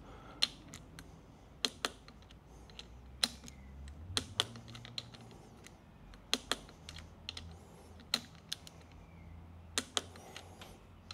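Torque wrench clicking as it tightens the lower triple clamp bolts to 15 N·m: single sharp clicks at irregular intervals, a dozen or more.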